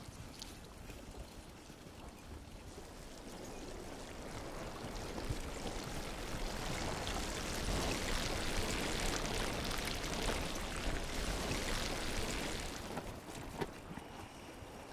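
Bicycle tyres swishing and splashing through shallow water on a wet tidal flat, building as a group of riders comes close and falling away about two seconds before the end.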